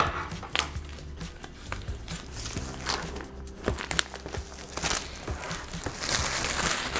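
Clear plastic shrink-wrap being peeled off a jigsaw puzzle box and crumpled by hand: crinkling and crackling with sharp snaps, densest near the end.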